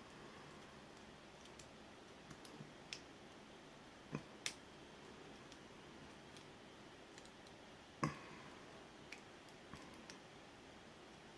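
Scattered light clicks and taps of lock picks working inside an ABUS 83AL/45 padlock, with a louder knock about eight seconds in.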